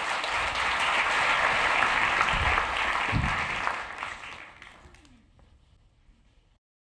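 Theatre audience applauding, dying away about five seconds in.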